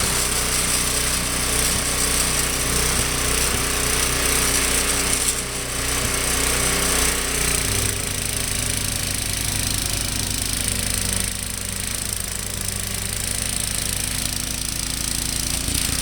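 Small engine running steadily, its note shifting slightly about eight seconds in.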